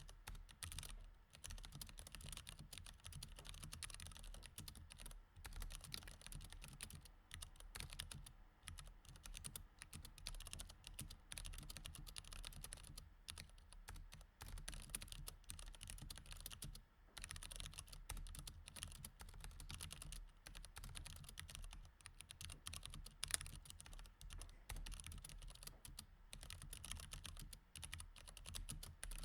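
Continuous quiet typing on a mechanical keyboard with Cherry MX Red linear switches: a dense run of key clacks with a few brief pauses, and one sharper keystroke about two-thirds of the way through.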